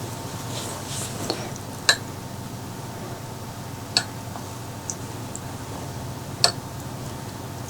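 Tableware clinking at a meal: three sharp clicks, roughly two seconds apart, with a fainter tick between, over a low steady hum.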